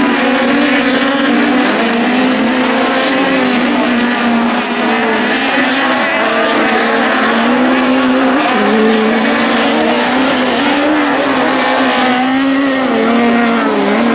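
Engines of 1600-class autocross sprint buggies racing flat out on loose dirt. The engine note rises and falls again and again as the drivers rev, shift and lift through the corners.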